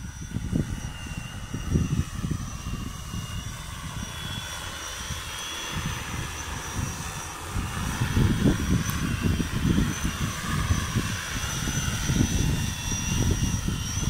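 Joyance JT6L-606 multirotor crop-sprayer drone's propellers whirring as it flies closer and comes down to hover low, growing louder about halfway through. Gusty low rumbling runs underneath.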